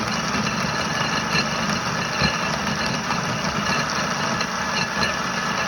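Electric blender running steadily at a constant speed, grinding sliced ginger, lemon, cucumber and celery with water into a smoothie.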